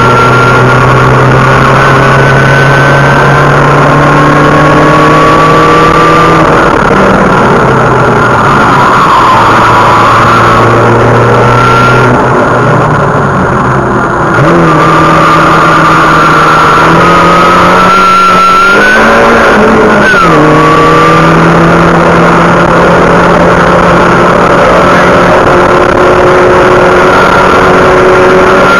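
Car engine heard loud from inside the cabin as the car is driven hard on a track, its pitch climbing under throttle and dropping at each gear change. It eases off briefly about twelve seconds in, then pulls again, with a sharp rise and fall a little before the twenty-second mark.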